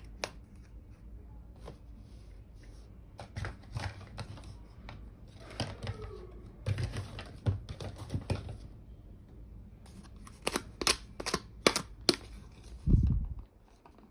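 Small plastic toy kitchen pieces being handled: irregular sharp clicks and taps, with soft rustling between them. A loud low thump comes about thirteen seconds in.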